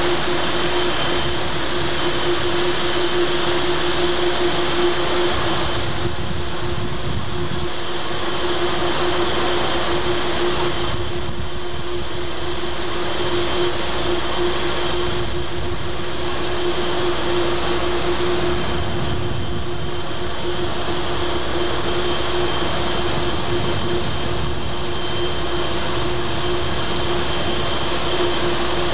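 Steady noise of a ship under way at sea: a loud, even rush of wind and water over the machinery, with a steady hum underneath.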